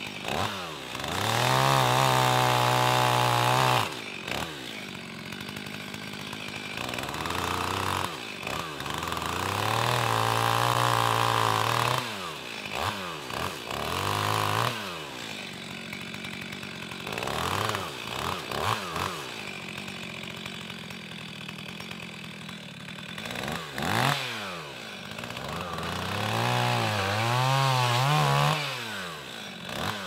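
Two-stroke chainsaw cutting into the base of a dead chestnut trunk. It runs at full throttle for spells of a few seconds, drops back to idle between cuts, and is blipped up and down in quick revs.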